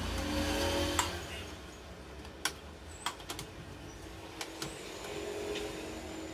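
Hands handling the plastic frame and wire harness of an opened HP LaserJet 1020 Plus printer: light rustling with a scatter of sharp plastic clicks, a cluster of them a few seconds in.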